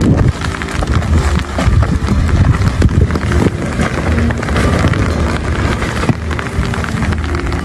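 Strong wind buffeting the microphone: a loud, rough rush with a low rumble and fine crackling.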